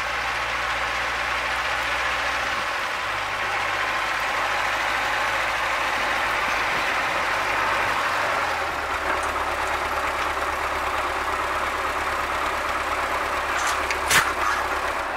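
Diesel engine of an MTZ-80-series (Belarus) tractor running steadily under load as it pulls a cultivator through the soil and passes close by. Its low engine note steps down a little twice along the way, and a couple of sharp knocks come near the end.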